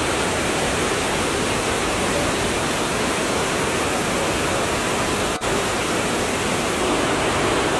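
Rushing water of a rocky forest stream: a steady, even rush of water tumbling over boulders, with a momentary break about five and a half seconds in.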